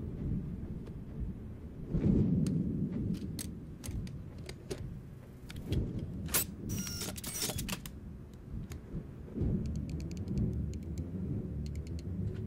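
Film sound design: a low rumbling drone that swells and fades, with the clicks and metallic clacks of a handheld gadget being loaded and set. A brief brighter whirr comes about six to seven seconds in, and a quick run of ticks comes near the end as the device's digital timer is set.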